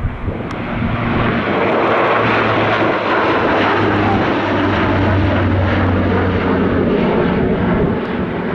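De Havilland Canada Dash 8-400 (Q400) turboprop climbing out at takeoff power, its two Pratt & Whitney Canada PW150A engines and six-bladed propellers giving a loud steady drone over a deep propeller hum. It grows louder about a second in and eases slightly near the end.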